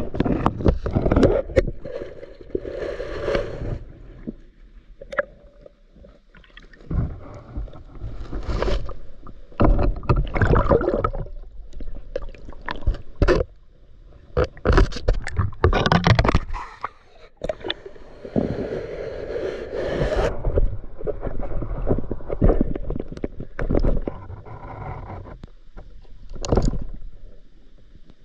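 Water rushing and gurgling around a diver in the water, in uneven surges every few seconds, with scattered sharp knocks.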